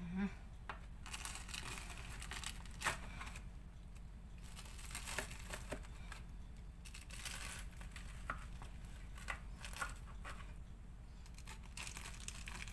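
Crisp baked phyllo layers of baklava crunching and crackling as a flat metal cutter is pressed down through them, in irregular crunches with scattered sharp clicks.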